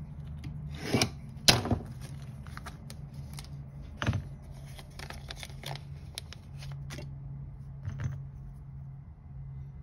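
A plastic parts bag being slit open with a utility knife and handled, with sharp crinkling clicks about one and one and a half seconds in. Small metal parts are then handled on a rubber bench mat, with further clicks about four and eight seconds in.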